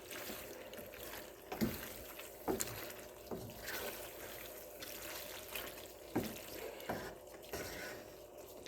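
A utensil stirring and lifting thick, sticky cream-and-cheese pasta in a pan: soft wet sounds with several light knocks of the utensil against the pan.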